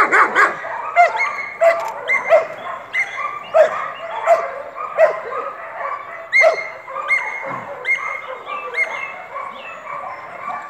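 Belgian Malinois barking repeatedly in protection training, a bark every half second to second, with high yelping cries in between.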